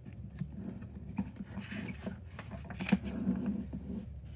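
A hardcover book being opened on a wooden table: the cover swings open and the paper pages rustle, with a few light knocks of the book and hands against the tabletop.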